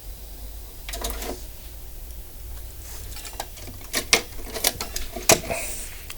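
Cassette and cassette deck being handled: a series of sharp plastic clicks and clacks, one about a second in and a cluster from about three to five and a half seconds in, over a low steady hum.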